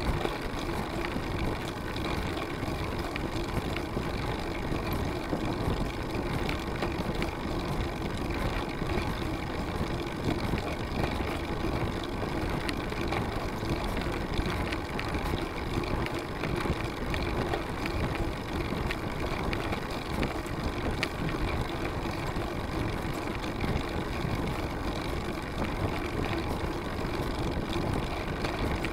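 Steady rolling and road noise of a road bicycle climbing on asphalt, picked up through a camera mounted on the bike.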